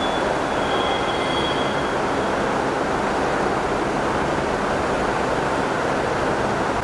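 Steady rumbling noise of railway station ambience, with a faint thin high squeal during the first two seconds.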